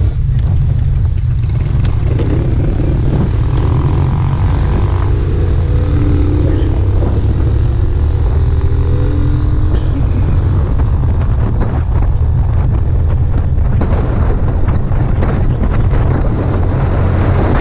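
Motorcycle riding, with heavy wind rumble on the microphone over the running engine.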